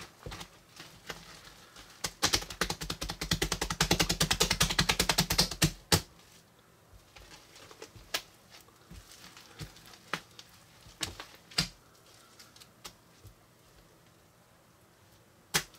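Hands squeezing and kneading a mass of slime packed with tiny foam beads (floam), giving rapid crackling clicks. The clicking is densest and loudest from about two to six seconds in, then thins to scattered pops and dies away near the end.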